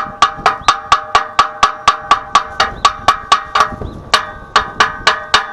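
Rapid, evenly spaced taps of metal on clamped steel, about four a second, each one ringing with the same clear tones, with a short break about four seconds in.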